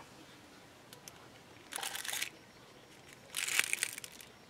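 Aluminium foil crinkling in two short bursts about a second and a half apart as a foil-lined tray is handled.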